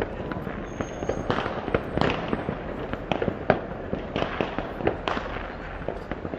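Fireworks exploding in a rapid, irregular series of sharp bangs and pops, several a second at times, over a steady rumble of distant bursts.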